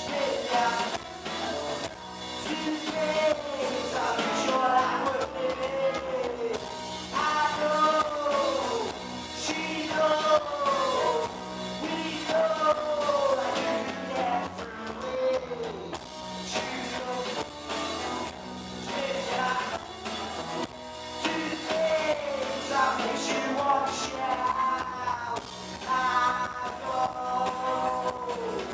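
Live rock band playing: electric guitars and a drum kit under a male singer's vocal phrases, many of which fall in pitch at their ends.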